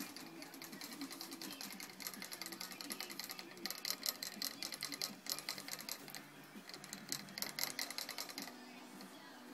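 A rabbit licking the metal ball-valve spout of a cage water bottle, a rapid run of fine clicks. The clicks pause briefly about five and six and a half seconds in and stop near the end.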